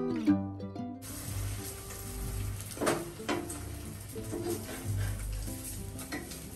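Omelette sizzling in a frying pan on a gas stove, with a spatula scraping and knocking against the pan a few times. Acoustic guitar music ends in the first second and stays faint underneath.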